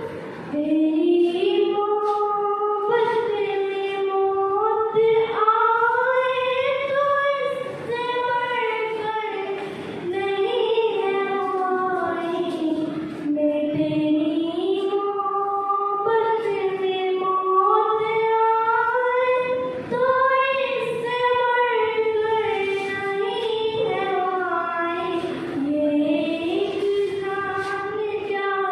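A girl singing solo into a microphone without accompaniment, in long held notes that rise and fall, phrase after phrase with short breaks for breath.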